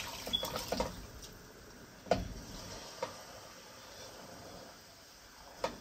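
Pieces of meat and stock being tipped from a bowl into a pot of fried egusi soup, with a few knocks against the pot, the sharpest about two seconds in.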